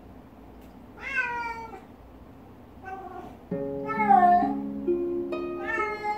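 Korean shorthair mackerel tabby cat meowing four times, falling-pitched cries with the loudest near the middle, crying out in separation anxiety after being left home alone. A plucked ukulele-style background tune comes in about halfway.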